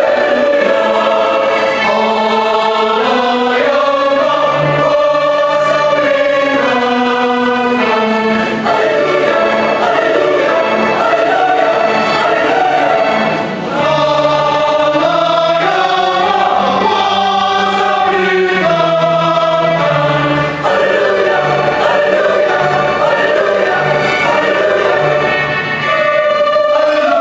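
Combined church choir singing a gospel song in full harmony, sustained chords changing every second or two over a pulsing bass line.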